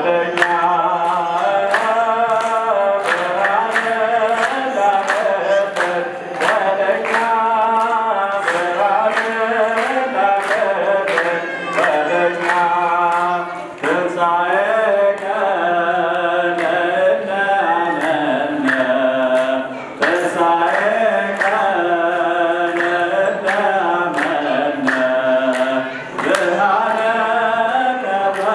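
Voices singing a chant-like church hymn over a steady beat. It is typical of an Ethiopian Orthodox mezmur, laid over the footage as background music.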